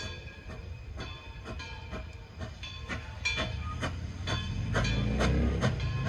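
A train's bell ringing steadily, about two strokes a second, each stroke leaving the same ringing tones. The low rumble of the moving train grows louder in the last second or two.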